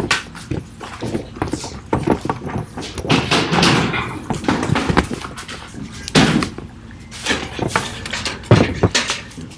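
Scattered sharp knocks and clatter of objects being handled, with snatches of voices, mixed together from several participants' microphones on a video call.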